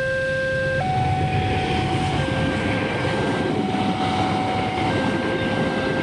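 Railroad level-crossing warning alarm sounding a steady two-tone signal that switches between a lower and a higher tone about every second and a half. It plays over the loud rushing rumble of a fast train passing the crossing.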